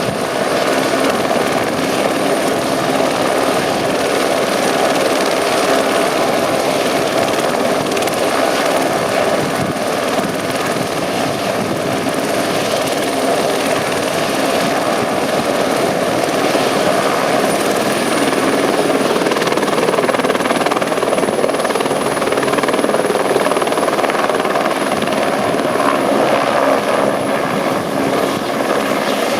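Eurocopter AS350 Écureuil helicopter with its single turboshaft engine and rotor running steadily. A thin high turbine whine rises slightly in pitch over the second half.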